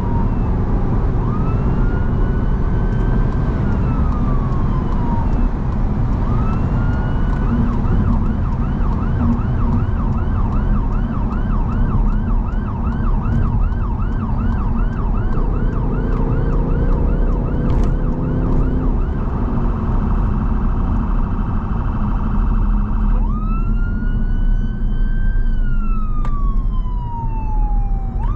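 Ambulance siren on an emergency run, heard from inside the cab over engine and road noise. It sounds a slow wail that rises and falls, switches to a fast yelp of about two cycles a second for around ten seconds, then goes back to a long wail near the end.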